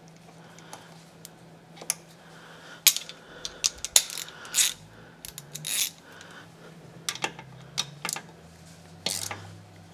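Socket ratchet wrench clicking in short, irregular runs as a 10 mm socket turns the gearcase plug snug, with brief metal clinks of the tool.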